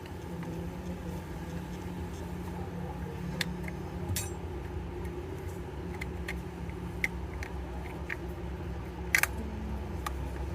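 Steady low electrical hum with a few light, sharp clicks and taps of small hard parts being handled at a repair bench, the loudest a quick double click about nine seconds in.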